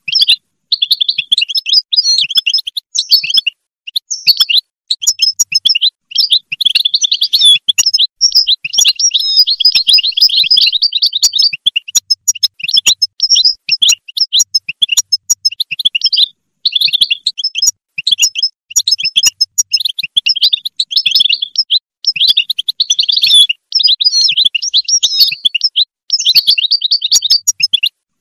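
European goldfinch singing: a rapid, liquid twittering song in phrases of a few seconds, broken by brief pauses.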